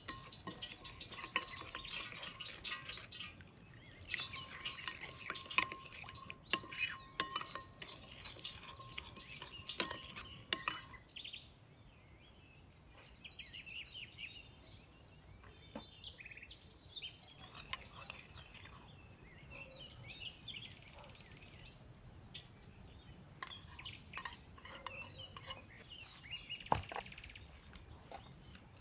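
A metal spoon clinking and scraping against a ceramic bowl while a sauce is stirred, with many sharp clicks. After about eleven seconds it goes quieter, and birds chirp now and then.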